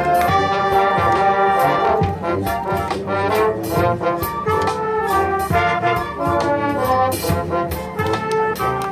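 Marching band playing: a brass section holding and moving through chords and melody lines, over regular drum strikes.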